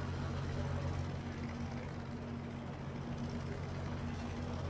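Steady low hum of a helicopter's engine and rotor.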